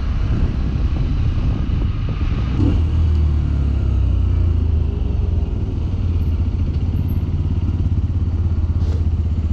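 2021 Sinnis Terrain 125 motorcycle engine running steadily while riding, a loud continuous low rumble.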